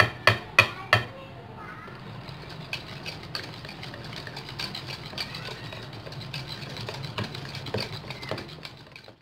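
Four sharp knocks in the first second, a small bowl tapped against a ceramic mixing bowl to empty the sugar from it. A steady low hum follows with scattered light clicks and faint voices in the background.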